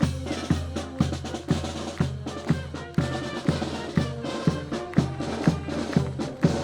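Music with a steady drum-kit beat, the bass drum hitting about twice a second under pitched instruments.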